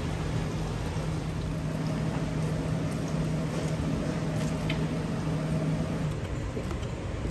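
Steady hiss and bubbling of ngoh hiong rolls deep-frying in a wok of oil, over the low steady hum of a gas wok burner. The hum stops about six seconds in.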